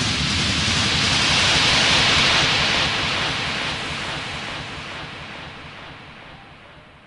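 A synthesized white-noise swell in an electronic dance mix, a steady hiss that rises to its peak about two seconds in and then fades away, with the low beat underneath dying out too: a breakdown before the track drops back in.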